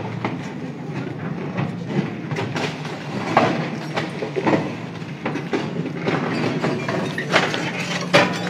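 JCB backhoe loader's diesel engine running under load while its bucket pushes and breaks rubble, with repeated clattering knocks of debris and metal; the loudest knocks come a little after three seconds in and near the end.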